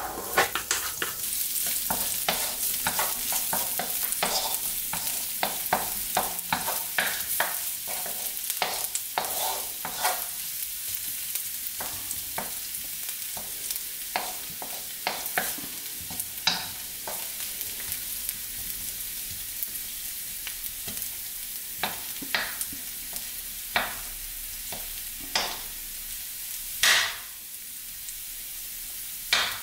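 Minced garlic sizzling in hot oil in a nonstick wok, with a steady hiss and many sharp clicks and scrapes from a wooden spatula stirring it. The clicks come thickly over the first half and thin out to occasional ones later.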